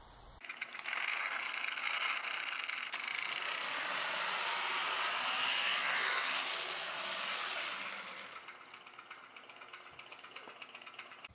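Battery-powered toy motorcycle running across a wooden floor, a mechanical whirring and rattling that starts about half a second in, grows louder toward the middle and fades over the last few seconds.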